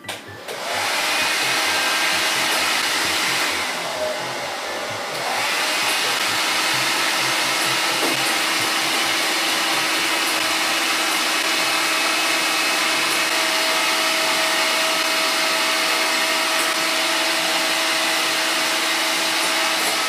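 Hand-held hair dryer blowing steadily, switched on about half a second in, with a steady motor hum under the rush of air. Its sound dips for a second or two about four seconds in, then comes back to full strength.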